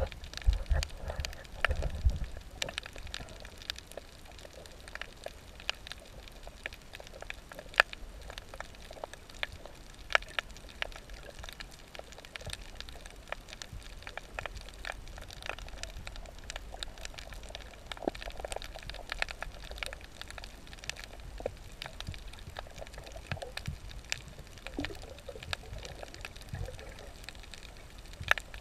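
Underwater reef ambience picked up through an action camera's waterproof housing: a low, muffled hiss of water with irregular sharp clicks and crackles throughout, and a few low thumps of water movement in the first couple of seconds.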